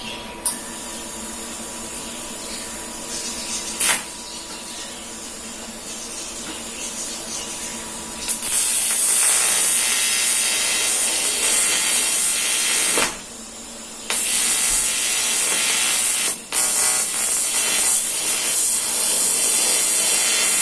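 TIG welding arc on aluminium: a steady hissing buzz with an even hum under it. It is fainter for the first several seconds, then loud from about eight seconds in, broken off briefly twice as the arc is stopped and restruck.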